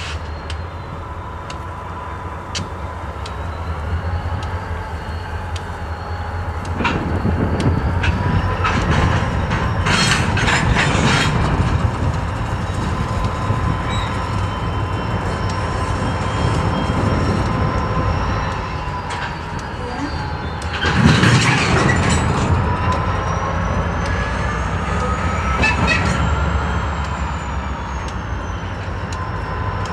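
Freight cars rolling slowly through a rail yard: a steady low rumble of wheels with scattered clicks over the rail joints, and thin squealing tones from the wheels that slowly rise and fall. Louder clattering bursts come about ten seconds in and again just after twenty seconds, the second the loudest.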